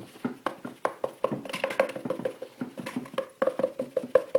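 Paper towel roll patting a cat over and over: quick, light, hollow taps, about four or five a second.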